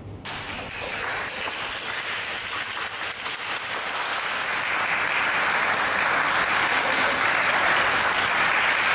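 Small audience applauding. The clapping starts suddenly just after the music stops and swells over the first few seconds.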